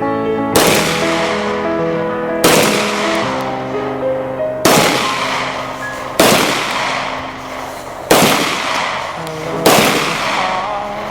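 Six single gunshots, spaced about one and a half to two seconds apart, each with a long echoing decay, over piano background music.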